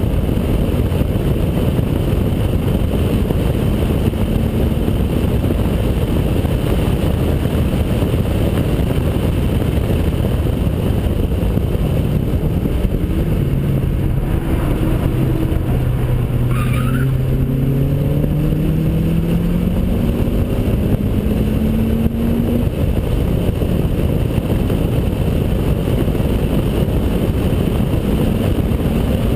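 A 2003 Honda Accord Type S at track speed with aftermarket intake and duplex exhaust, heard from a camera outside the driver's window: a steady rush of wind and road noise, with the 2.4-litre four-cylinder engine beneath it. Around the middle the engine note climbs steadily in pitch through a long pull under acceleration.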